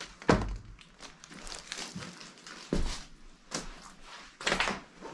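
Footsteps crunching and scuffing over scattered plaster debris and paper, with rustling and a few dull knocks at irregular intervals.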